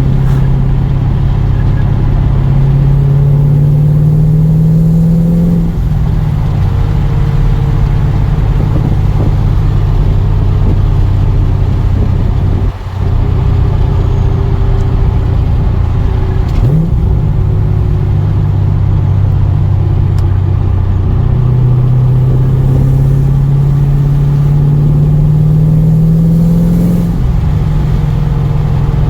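Chevrolet Camaro SS V8 heard from the driver's seat with the windows down while driving. Its pitch climbs twice under acceleration and each time drops suddenly at a shift, with steady cruising between.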